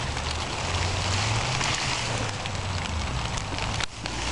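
Crackling rustle of radish leaves and plants being handled and pulled from the soil, over a steady low rumble, dropping out for a moment near the end.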